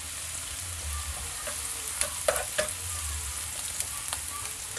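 Minced garlic sizzling in a little oil in a pan while a metal spoon stirs it, scraping and clinking against the pan a few times, loudest a little over two seconds in.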